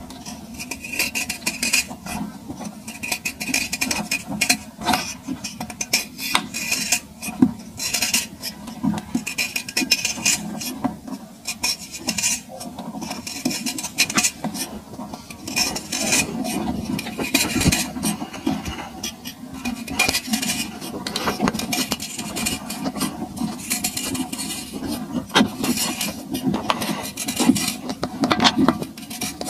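A metal knife blade scraping and cutting into a dry chunk of packed sand, the grains crunching and crumbling away in a dense, irregular run of gritty scrapes and crackles.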